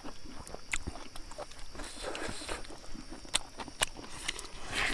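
Close-up mukbang eating sounds: chewing and lip-smacking of smoked pork and rice, made up of many short, irregular clicks and smacks, with light rustling as hands work the food on banana leaves. A steady high hiss sits underneath throughout.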